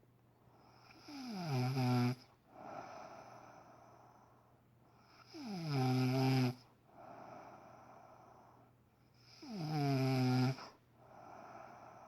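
A woman snoring loudly, three long snores about four seconds apart. Each starts a little higher, slides down to a steady low buzz and then cuts off, with softer breathy breaths between.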